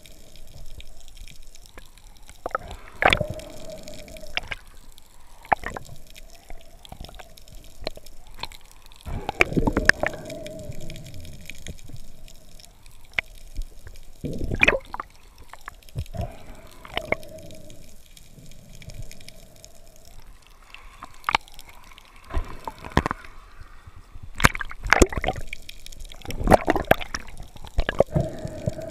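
Underwater handling of a speared dentex: irregular sharp clicks and knocks with bubbling, gurgling water, in clusters that grow busier near the end.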